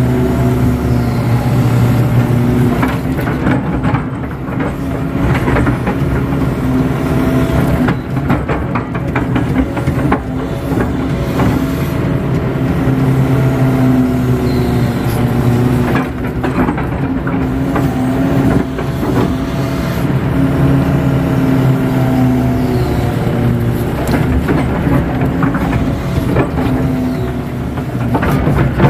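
KATO HD512E crawler excavator's diesel engine running under load, heard from inside the cab. Its note swells and dips as the hydraulics work the arm and bucket, with a rising-and-falling hydraulic whine and scattered knocks.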